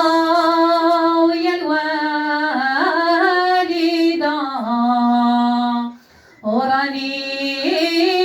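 A woman sings a traditional Moroccan henna-night wedding song solo, holding long, drawn-out notes that bend slowly in pitch. She breaks off for a breath about six seconds in, then carries on.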